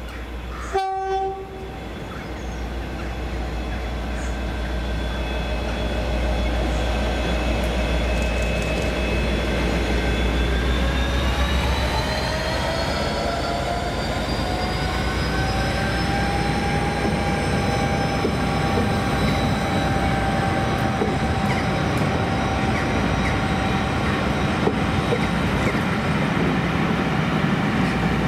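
Class 57 diesel locomotive, a General Motors EMD two-stroke engine, gives a short horn blast about a second in, then approaches under power with a deep engine rumble. About ten seconds in its engine and turbocharger whine rise in pitch and then hold as it passes close by. The charter coaches then roll past behind it.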